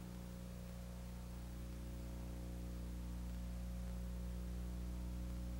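Steady electrical mains hum, a stack of low tones, over a faint even hiss: the noise floor of an analog video transfer with no programme sound.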